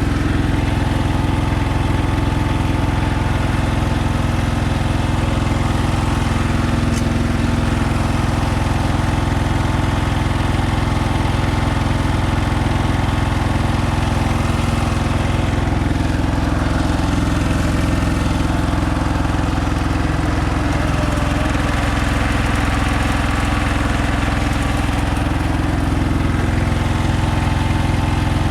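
Konma MT-S411D harvester running steadily, its engine and threshing mechanism going together, with a slight change in the low hum about halfway through.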